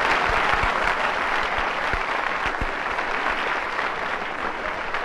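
Live audience applauding steadily in response to a joke.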